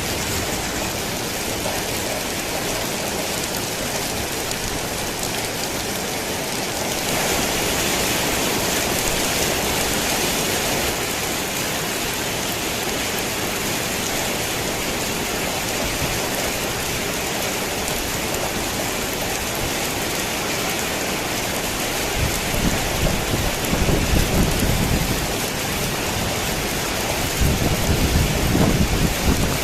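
Steady heavy rain on a tin roof, growing louder for a few seconds about a quarter of the way in. Thunder rumbles low twice in the last third.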